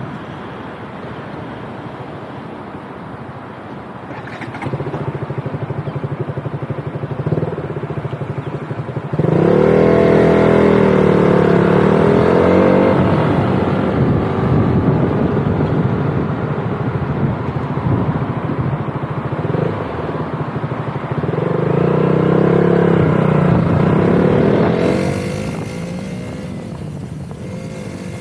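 Motorcycle engine running under way, its pitch rising and falling through two spells of acceleration and gear changes, about a third of the way in and again near the end, with steady road noise underneath.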